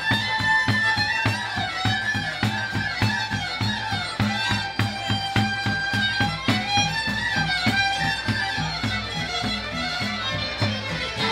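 Romanian folk band playing: a violin carries the melody over accordion and double bass, with a drum keeping a quick, steady beat.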